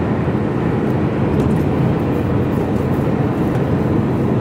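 Engine and road noise heard inside the cab of a moving HGV container lorry: a steady low drone.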